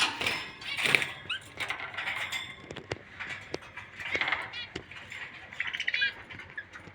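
Many caged birds chirping and chattering together, a dense overlapping mix of short high calls, with sharp clicks scattered through.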